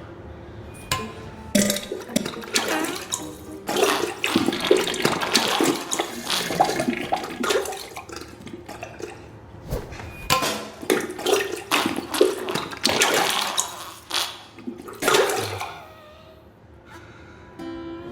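Diarrhea sound effect: wet, sputtering spurts and splatters coming in irregular bursts, dying away near the end.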